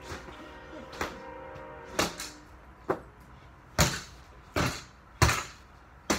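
Speed bag on a stand being whacked about seven times, roughly once a second, each a sharp slap, over faint background music.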